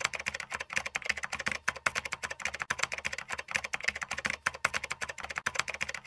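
Keyboard typing sound effect: a rapid, uneven run of key clicks.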